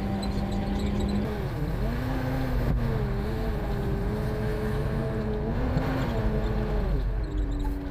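Diesel engine of a front-discharge concrete mixer truck pulling the truck along. Its pitch drops and climbs back about a second and a half in, holds steady, then dips and rises again near the end.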